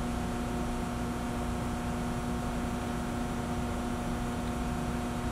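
Steady electrical or mechanical hum with a constant low tone, unchanging throughout: room tone.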